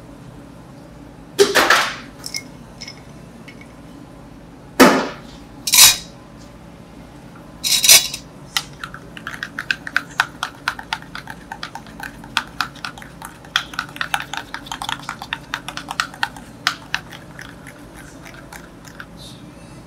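A long metal spoon stirring quickly inside a small stainless-steel cup, a fast run of light clinks for several seconds after the first third. Before it come a few louder separate clatters and scrapes of utensils at the counter.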